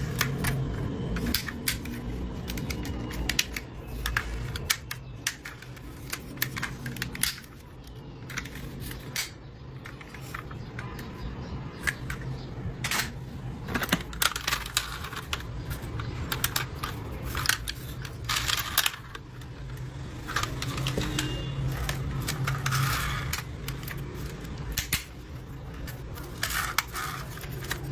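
Irregular clicks and taps, several a second at times, over a low steady hum.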